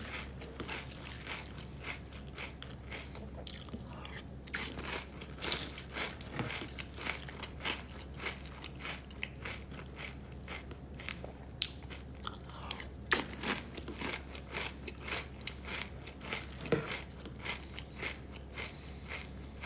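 Close-miked chewing and crunching of crisp food, a long run of sharp crunches of varying loudness, over a steady low hum.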